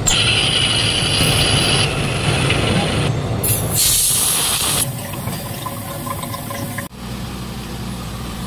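Milling machine running a spiral end mill cutting into a C45 steel tube, a continuous grinding, hissing cut noise. About seven seconds in it gives way to a steady low machine hum.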